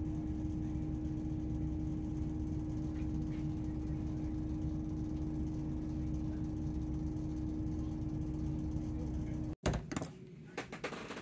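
Steady low rumble and hum of a Class 168 diesel multiple unit, heard inside the passenger saloon while the train runs. The sound cuts off abruptly near the end, giving way to a quieter small room with a few clicks and knocks.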